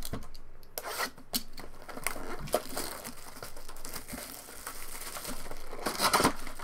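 Trading-card pack wrappers crinkling and tearing as packs are opened by hand, with a louder flurry of crinkling near the end.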